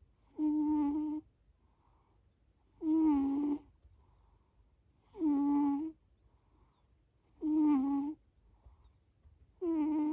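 A sleeping pet snoring: five short, evenly spaced, tone-like snores with a steady hum-like pitch, one about every two and a half seconds.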